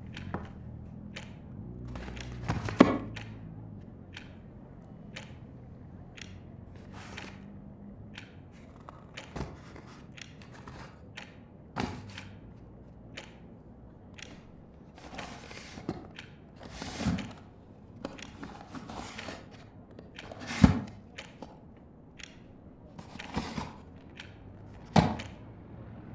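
Scattered knocks, thunks and light clicks of objects being handled and set down in a room, as of someone pottering about. The loudest thunks come about three seconds in and about two-thirds of the way through, with a low steady hum under the first several seconds.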